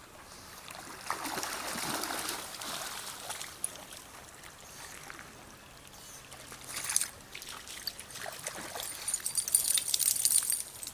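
Creek water splashing and trickling around dogs swimming through it. Near the end comes a run of sharper splashes as a pug wades out through shallow water.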